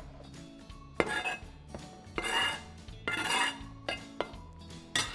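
A knife blade scraping chopped herbs off a cutting board into a ceramic salad bowl in three short strokes, with sharp knocks of knife and board against the bowl, the loudest about a second in and near the end.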